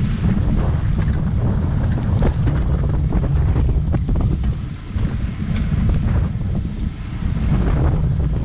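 Wind buffeting the microphone of a bike-mounted GoPro while riding at speed, a loud steady low rumble with a few faint ticks.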